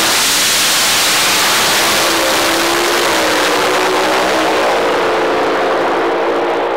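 Top Fuel dragster's supercharged nitromethane V8 at full throttle through the launch and run, a very loud, crackling blast that eases slightly as the car pulls away down the strip.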